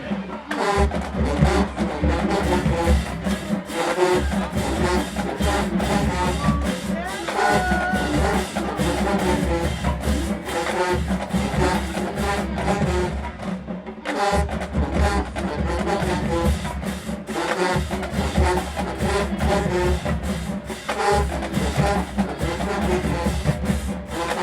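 HBCU-style marching band playing: brass horns over a drumline's steady beat, with a short break about fourteen seconds in.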